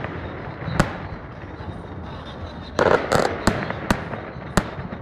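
Aerial fireworks shells bursting in a display: one sharp bang a little under a second in, then a quick run of about five bangs from about three seconds in.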